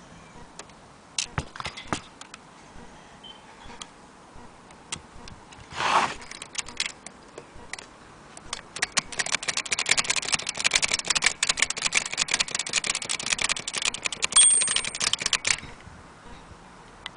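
Aluminum Blick Featherweight typewriter: a few scattered key clicks and a short rasping sweep about six seconds in, then a fast run of typing, keys clacking several times a second for about seven seconds. A brief high ring comes near the end of the run.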